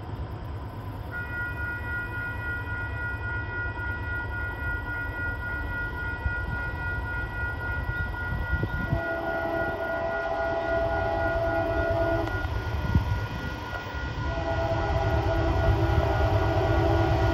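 Diesel locomotive horn on CP 8051, the lead unit of an approaching freight train, sounding two long blasts: one about nine seconds in and a second starting about fourteen seconds in. The horn sounds weak. Under it the train's low rumble grows steadily louder as it nears.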